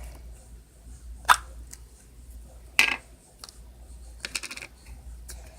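Small hard objects knocked and set down on a table as craft supplies are handled: two sharp clicks about a second and a half apart, then a quick rattle of small ticks near the end.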